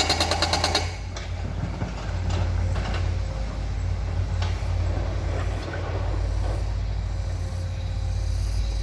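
Heavy diesel construction machinery working: a fast, even rattle for about the first second, then a steady low engine drone with scattered metallic clanks and knocks.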